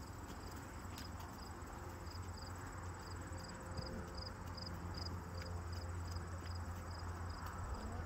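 Insects chirping steadily, about two chirps a second, with a thin constant high trill, over a low steady rumble. A few faint hoof steps of a horse walking on soft dirt.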